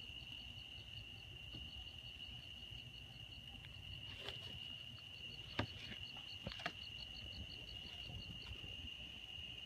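Night insects calling: one steady high trill with a second insect chirping about five times a second above it. A few sharp knocks stand out around the middle.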